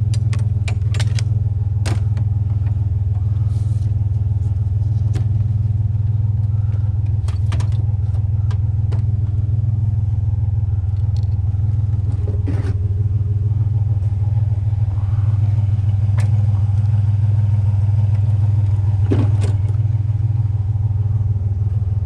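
Pickup truck engine idling steadily, with scattered sharp knocks and clicks over it.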